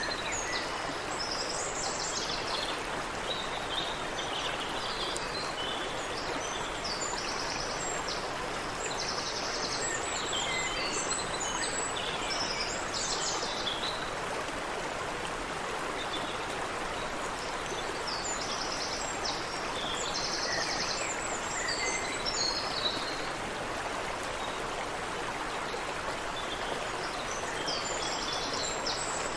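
Stream water running steadily over rocks, with songbirds calling over it in several bouts of high chirps and rapid trills.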